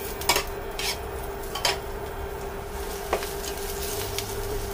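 Silicone spatula scraping and knocking against a nonstick frying pan a few times, stirring sliced garlic in hot oil, over a steady hum.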